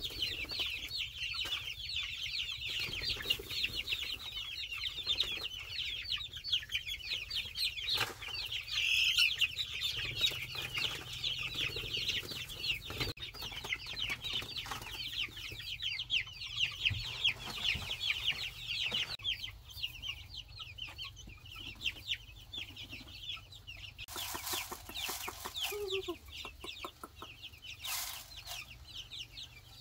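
A crowd of young chicks peeping continuously: many short, high, falling cheeps overlapping. The chorus thins out in the last third. Two brief noisy bursts come near the end.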